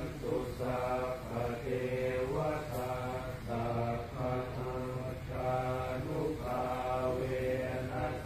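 Buddhist monk chanting prayers in Pali: a steady, even run of short phrases, about one a second, on a near-level pitch.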